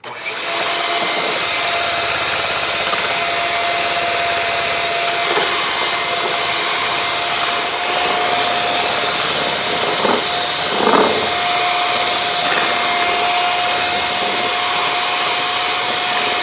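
Electric hand mixer switched on at its highest speed, its wire beaters whipping egg whites in a glass bowl toward stiff peaks. The motor starts suddenly and runs with a steady whine.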